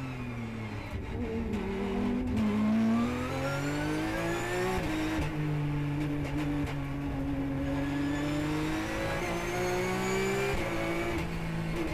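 Porsche 911 GT3 Cup race car's flat-six engine heard from inside the cockpit: the note falls as the car brakes into a corner in second gear, then rises under full acceleration, with a sharp drop at the upshift to third about five seconds in and another at the upshift to fourth near the end.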